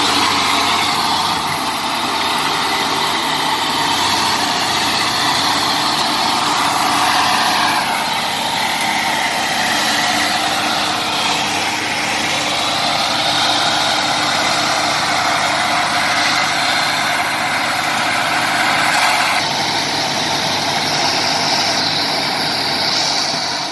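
Komatsu D70LE crawler bulldozer diesel engines running hard under load while dragging a heavy log, a dense, steady mechanical sound whose tone shifts about 8 and 19 seconds in.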